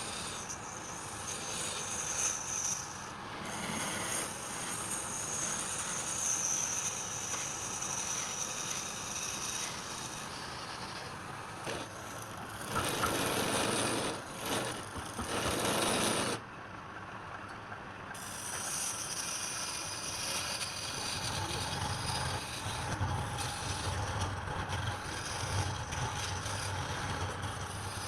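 Wood lathe running while the spinning wood is worked, with a stretch of louder, denser cutting noise about halfway through.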